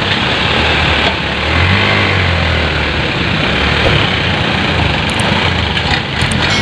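Loaded light dump truck's diesel engine running hard and steady under load while its rear wheel is bogged in wet mud, the engine note swelling briefly about two seconds in.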